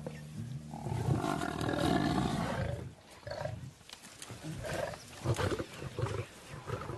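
Lions growling as they pull down a Cape buffalo cow, which gives a long, loud distress bellow from about a second in. A run of short, repeated growls and grunts follows.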